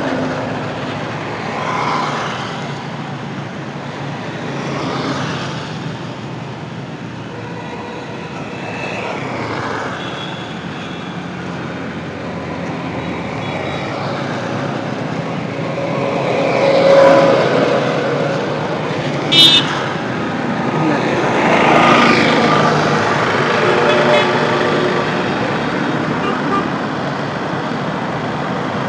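Road traffic: vehicles passing one after another, the noise swelling and fading as each goes by, with one brief sharp high-pitched sound about two-thirds through.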